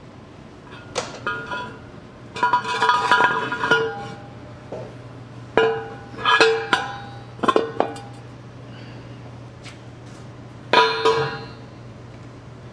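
Metal knocks and clanks on a D-10 tank gun barrel and its outer sleeve as it is worked by hand, each knock ringing on in a few clear tones. About five bunches of clanks, with gaps of quiet between.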